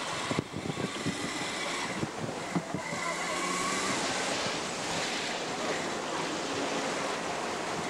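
Rough sea rushing and breaking around the stern of a sailing yacht running downwind in a swell, with wind buffeting the microphone. A few short knocks come in the first three seconds.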